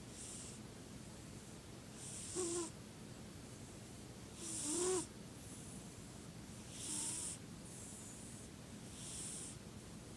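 A sleeping pet snoring: soft hissing breaths about every two seconds, several with a short whistling squeak in them, the loudest about five seconds in.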